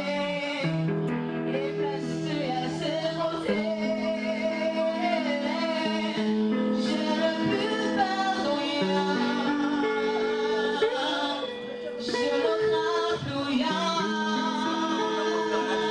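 A woman singing a song into a microphone over instrumental backing, with long held notes that slide between pitches.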